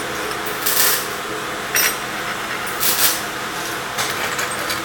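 Metal scrap parts clinking against each other and the steel workbench as they are handled, four short clinks over a steady shop hum.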